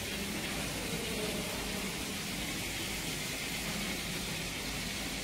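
Steady hiss of background room noise with a faint low hum underneath; no distinct event stands out.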